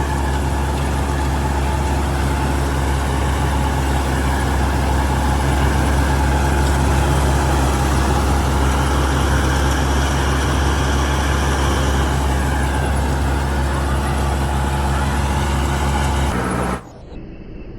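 Old combine harvester's diesel engine running steadily under load, with a deep low hum. It cuts off abruptly near the end, giving way to quieter insect chirping.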